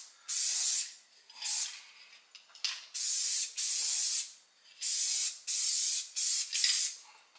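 Aerosol can of Krylon Rust Protector gloss enamel spraying in a series of short hissing bursts, mostly about half a second each with brief pauses between, as a coat of paint is laid onto a steel suspension control arm.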